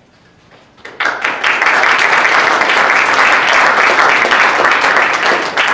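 Audience applauding, starting suddenly about a second in and holding steady.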